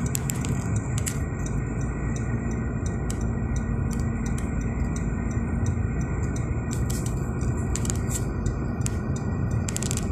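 Steady road and engine noise heard from inside a moving car's cabin, heaviest in the low range, with scattered light ticks.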